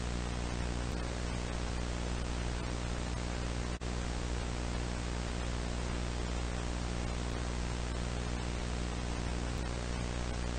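Steady static hiss with a low electrical hum beneath it, broken by a split-second dropout about four seconds in.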